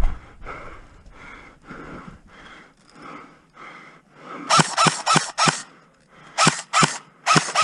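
Airsoft gun firing single shots in quick groups: about nine sharp cracks in three bunches, beginning about halfway through.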